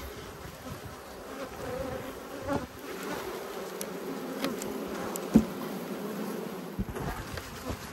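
Many honeybees buzzing in flight around the hive, a steady wavering hum, the colony upset. A few sharp knocks, the sharpest a little past halfway.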